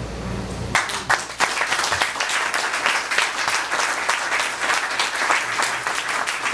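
Audience applauding, with many hands clapping at once, breaking out about a second in and holding steady.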